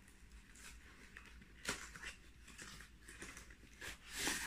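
Rustling and scraping of a cardboard box and its packaging being opened by hand, in scattered short rustles that are loudest near the end.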